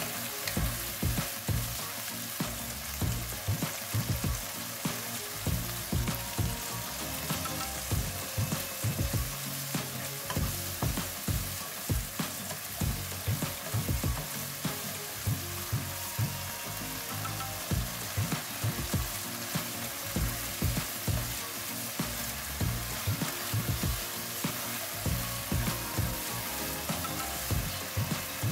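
Baby corn, green beans and carrot sizzling in a nonstick wok while a wooden spatula stirs them, scraping and knocking against the pan in quick repeated strokes.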